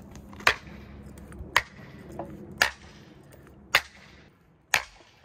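Five sharp blows about a second apart, felling wedges being hammered into the back cut of a leaning fir tree.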